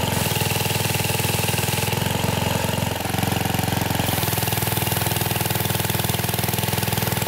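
Briggs & Stratton 190cc single-cylinder pressure washer engine running steadily at a fast idle, its firing pulses even, with a slight dip about three seconds in.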